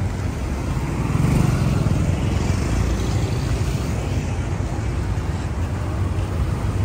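City street traffic: a steady low rumble of passing cars and motorbikes, swelling a little as one passes close about a second in.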